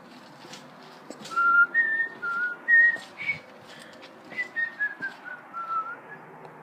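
A person whistling a short tune by mouth. A few notes go up and down, then a run of notes steps downward near the end.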